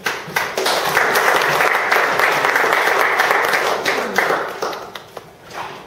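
Audience applauding: the clapping starts at once, holds strong for a few seconds, then dies away about five seconds in.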